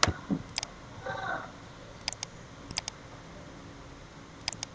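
Computer mouse clicking: one sharp click at the start, then four quick double clicks spread over the next few seconds.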